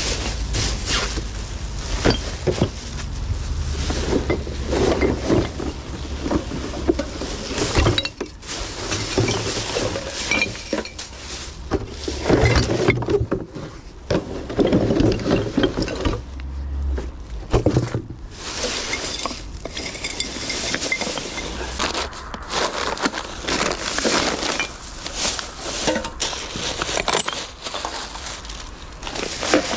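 Rubbish being handled and bagged: a plastic bin bag rustling, and drink cans and glass bottles clinking and clattering in a long, irregular run of knocks.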